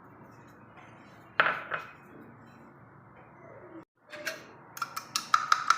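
Kitchen utensil knocking against a dish: two knocks about a second and a half in, then a quick run of ringing clinks, about five a second, near the end.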